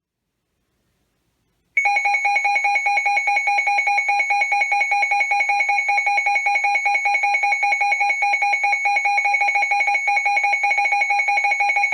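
Emergency Alert System attention tone on a NOAA Weather Radio broadcast: a loud, steady two-tone alarm that starts about two seconds in and holds without a break, signalling that a warning message is about to follow.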